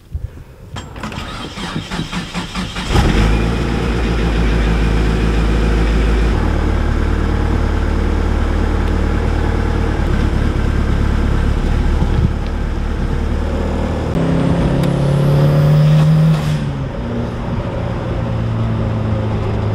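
Second-generation Mitsubishi Eclipse engine cranking with an even beat for about two seconds and catching about three seconds in, then running steadily. About three-quarters in it revs up briefly with a rising whine, then settles into a steady note as the car drives.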